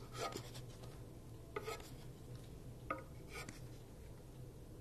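A wooden spatula scraping and tapping on the flat metal surface of an electric griddle as pancakes are turned over: about four short scrapes and knocks.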